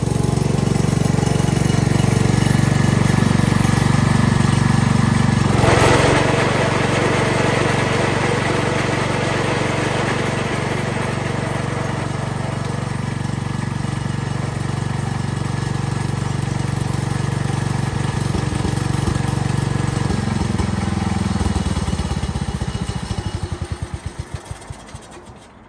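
Wheel Horse C161 garden tractor's single-cylinder Kohler engine running steadily, with a brief burst of rushing noise about six seconds in. Near the end the engine is shut off and coasts to a stop, its firing strokes slowing and fading out.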